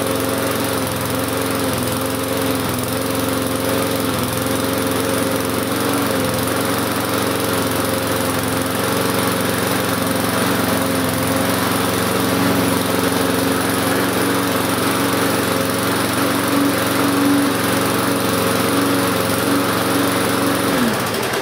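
Briggs & Stratton 3.5 hp single-cylinder four-stroke lawn mower engine running steadily at a constant speed after a drill-powered start. Near the end its note falls and it winds down to a stop.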